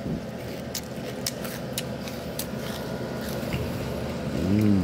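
Sparse sharp crackles from a Butterfinger bar's foil-lined plastic wrapper being squeezed and handled, over a steady low hum. A short hummed voice sound comes near the end.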